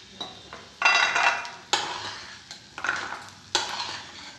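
A metal spoon clanks and scrapes against a metal kadhai as roasted peanuts are scooped out of the oil and tipped into a steel bowl. There are about four sharp clanks, roughly a second apart, each ringing briefly.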